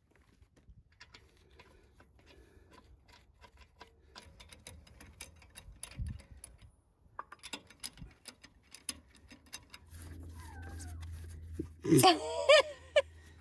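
Scattered light clicks and taps, then a low steady hum, and near the end a dog gives a short, loud, wavering whine.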